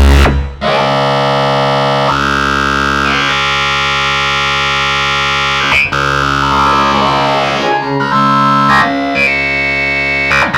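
Dark MIDI synthesizer ringtone music: held, layered chords that change every few seconds, with a falling sweep about six seconds in and shorter, choppier notes near the end.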